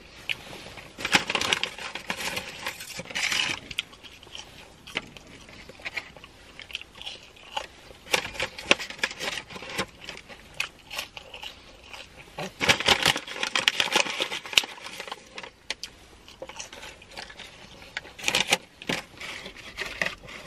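Close-up eating sounds: crunchy chewing of fried fast food, with irregular clicks and wet mouth sounds, in several bouts with quieter gaps between.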